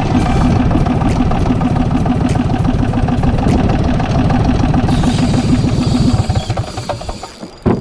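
Small boat's engine running steadily with a fast, even pulse as the boat trolls. The sound drops away about six seconds in and cuts off just before the end.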